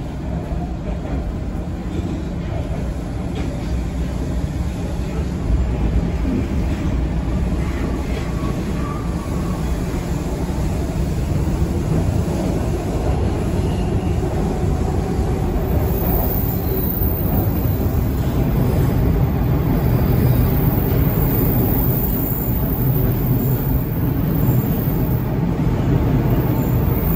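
Toronto subway car on Line 2 heard from inside, running through the tunnel: a steady rumble of wheels and running gear that grows gradually louder as the train gathers speed.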